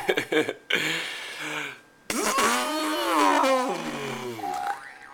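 A person making funny noises with their lips: sputtering, spluttering bursts for about two seconds, then after a brief pause a long, pitched, buzzing lip sound that rises and falls, much like a motor.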